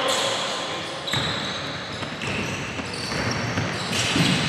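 Basketball game play on a hardwood gym court: the ball bouncing and players' feet on the floor as they run up the court, with a few knocks heard over a mix of gym noise.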